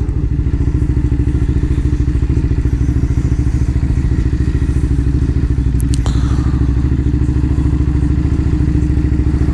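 Ducati Hyperstrada's V-twin engine running at a steady, even pace with a fast pulsing beat. One short sharp click about six seconds in.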